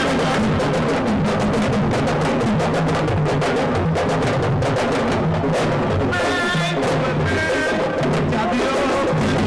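Music driven by dense, fast drumming, with a pitched melodic part coming in over it about six seconds in.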